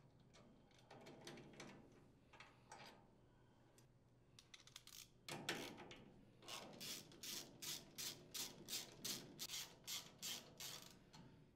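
Hand socket ratchet unthreading the cylinder-head mounting screws of a Briggs & Stratton small engine. Faint handling noises come first; from about halfway there is a regular run of ratchet clicks, roughly three a second, until near the end.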